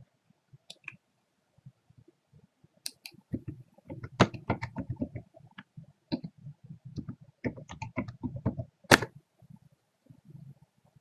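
Computer keyboard typing: a quick run of separate keystrokes, ending in one louder, sharper key press near the end.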